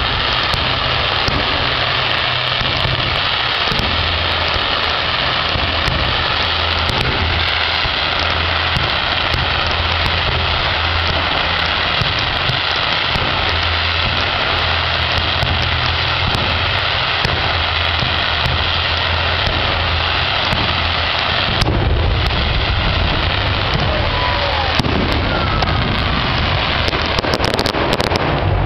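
Fireworks display: a loud, steady wash of crackling and fizzing from rising rockets and bursting shells, with a low rumble underneath that grows heavier about two thirds of the way in.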